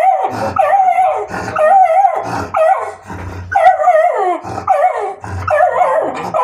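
Beagle baying: a run of about six loud, wavering howl-barks, each sliding down in pitch at its end, with short breaks between them.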